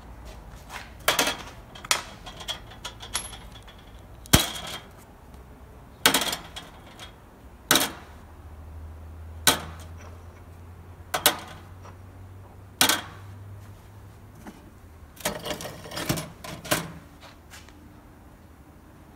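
Sharp metallic clanks and clicks of steel caster wheel parts being handled, roughly one every one to two seconds, with a quick cluster near the end.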